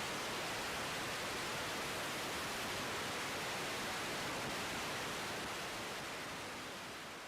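Steady, even hiss with no tone or rhythm in it, fading away over the last couple of seconds.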